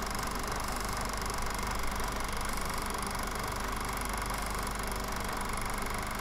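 Film projector running: a steady mechanical hum and whir that stays even throughout.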